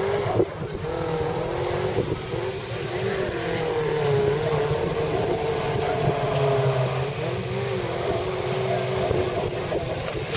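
Off-road trial truck's engine running under load as the truck crawls over a steep mud bank, its pitch wavering up and down. A single knock about half a second in.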